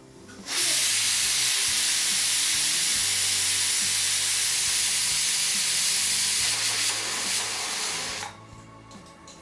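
Pigeon pressure cooker's weight valve lifting and venting steam in a loud, steady hiss for about eight seconds, then cutting off suddenly as the weight drops back. This is one of the 'whistles' counted to time the cooking of chana dal: the cooker has reached pressure.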